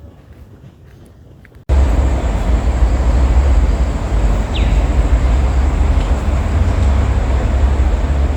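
Wind buffeting the microphone: a loud low rumble with a rushing hiss over it, cutting in suddenly about two seconds in after a quieter start. A single short falling whistle sounds partway through.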